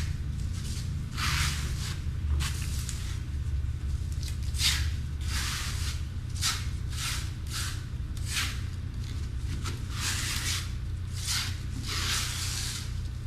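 Wet, scraping strokes of a tool spreading Redgard liquid waterproofing membrane, mixed with sand aggregate, over fiberglass cloth. There are about a dozen strokes at an uneven pace of about one a second, as the coat is worked in to fill the cloth, over a steady low hum.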